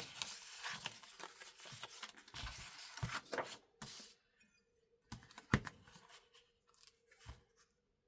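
Rustling and crinkling from handling a bookbinding tool and paper-like material for about four seconds, followed by a few scattered light knocks and taps, the sharpest about halfway through.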